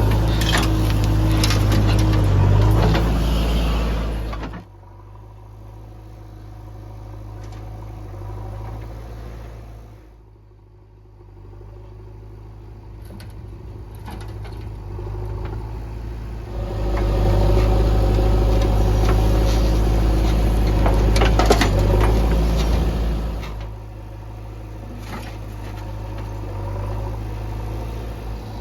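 Heavy diesel engines of a backhoe loader and tractors running at a work site. They are loud for the first four seconds or so, then drop off suddenly to a much quieter run. They come back loud for several seconds past the middle, with a few clanks, then settle at a lower level.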